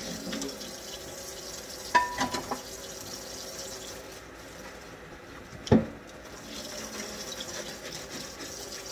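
Kitchen tap running into the sink while dishes are washed by hand. A few ringing clinks of dishes come about two seconds in, and one loud knock near six seconds.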